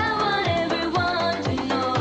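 Music with a steady beat and a gliding melody line.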